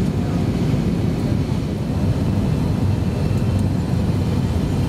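Steady low rumble of a jet airliner's engines and airflow heard from inside the passenger cabin during the descent to land.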